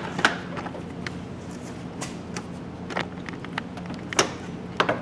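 Scattered light clicks and knocks of a plastic interior door panel being handled and fitted against a truck's door, about six in all.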